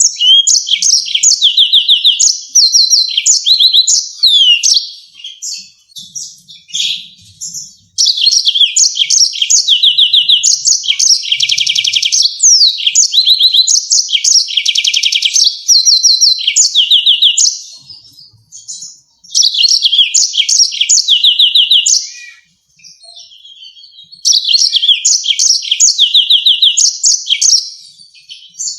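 Yellow-fronted canary singing long, loud bouts of fast, high trills and rapid chattering phrases, breaking off briefly a few times between bouts.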